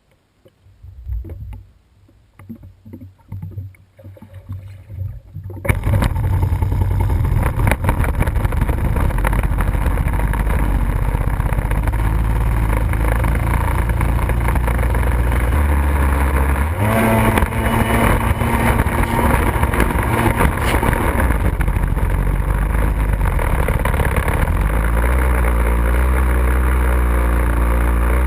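Two-stroke 750 cc engine of a Kawasaki X2 stand-up jet ski, fitted with a factory pipe and PJS waterbox, coming in suddenly and loudly after about six seconds of light water sloshing and knocks, then running hard under way with wind and water noise over it. Its pitch drops and climbs again about two-thirds of the way through.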